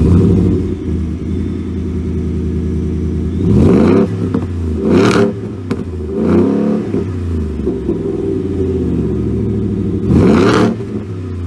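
Ford Shelby F-150's supercharged 5.0 L V8 heard through its dual exhaust tips, idling and blipped four times with short throttle revs that rise and fall back to idle.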